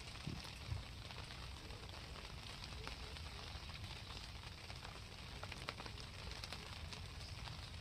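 Rain falling steadily: an even hiss of rain with many small scattered drop ticks.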